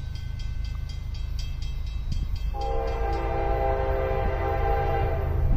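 Diesel locomotive air horn sounding one long chord of several notes, starting about two and a half seconds in, over a steady low rumble of the approaching freight train.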